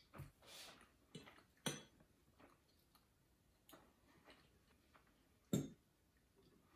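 Near silence broken by a handful of faint, short clicks and taps, the loudest about one and a half and five and a half seconds in.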